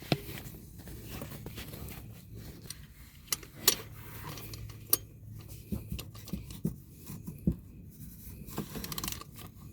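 Scattered sharp clicks and clinks of hand tools and parts being handled, with the loudest knocks about three and a half, five and seven and a half seconds in, over a low steady hum.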